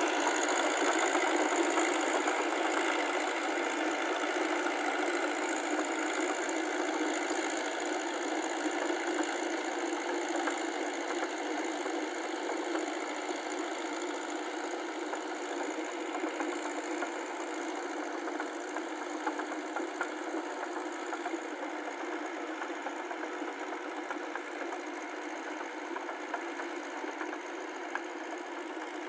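Small crawler tractor's engine running steadily as it pulls a rotary tiller through flooded paddy mud, growing gradually fainter as it moves away.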